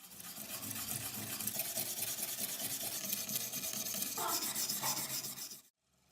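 Steady, rough scraping of rust being scrubbed off a metal clock part, with a fine fast grain, cutting off abruptly near the end.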